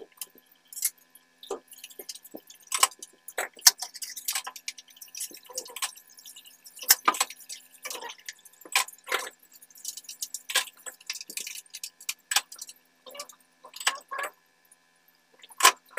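Hand tools scraping and clinking on the bare top deck of an Isuzu diesel engine block, in short irregular strokes, as the deck is cleaned for a new head gasket.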